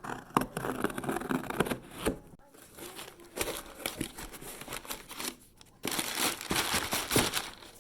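A shipping box being opened by hand: irregular crinkling, tearing and rustling of packaging, busiest and loudest near the end.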